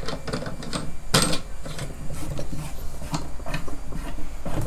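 Irregular clicks and light metallic knocks from the brake assembly of a line winder's spool holder being adjusted by hand: the wing nut, compression spring and brake hub are turned and pressed against the spool. One louder knock comes about a second in.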